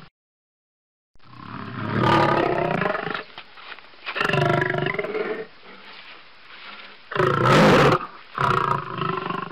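Lion roaring: four loud calls starting about a second in, the first about two seconds long and the last three shorter.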